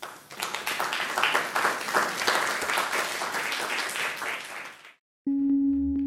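Audience applauding, dense clapping that cuts off abruptly about five seconds in. Just after, a held musical note from closing ident music starts.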